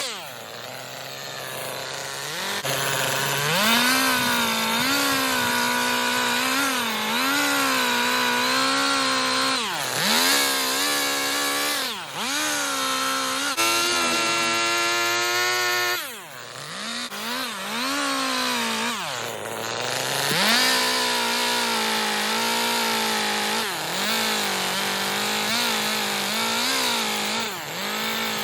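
Chainsaw carving wood, revving to full speed and dropping back toward idle again and again, its pitch wavering while the chain is in the cut.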